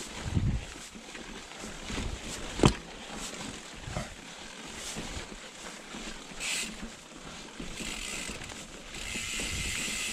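Mountain bike rolling down a rocky trail: tyres and frame knocking and rattling over stones, the loudest a sharp knock about two and a half seconds in. A freewheel hub buzzes while the bike coasts, briefly past the middle and again near the end.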